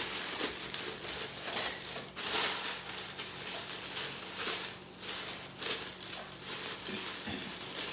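Thin plastic slow-cooker liner rustling and crinkling in irregular surges as it is spread into a crockpot.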